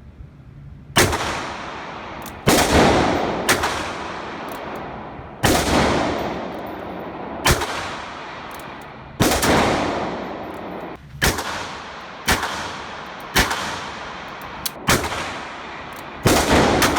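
H&R Model 940 .22 LR revolver firing a slow string of about eleven shots, one every one to two seconds, each with a long echoing tail.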